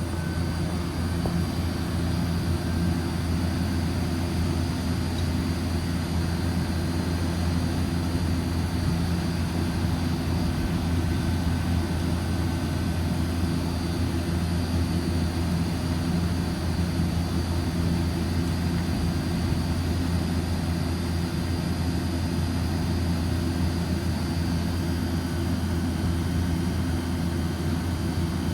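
Orion RKE2200B1-V-G2 inverter chiller running steadily on a test run: an even low hum with a faint high tone above it.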